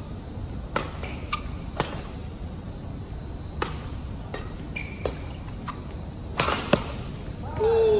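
Badminton rally: a shuttlecock struck back and forth with rackets, a series of sharp hits at uneven spacing, the loudest coming about six and a half seconds in. A short shout from a player comes at the very end.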